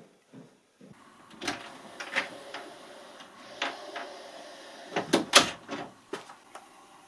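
A few soft footsteps on wooden stairs, then scattered clicks and knocks of an interior door's handle and latch being worked, loudest in a quick cluster about five seconds in.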